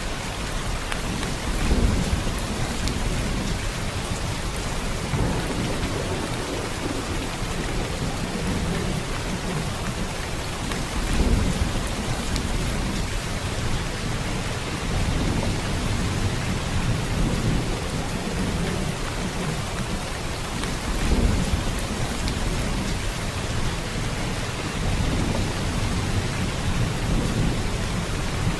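Steady rain falling in a dense even patter, with low rumbles that swell and fade every several seconds, loudest about two, eleven and twenty-one seconds in.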